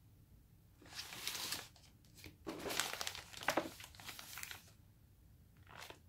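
A white shopping bag crinkling as hands handle and lift it: a rustle of about a second, a louder one lasting about two seconds, and a short one near the end.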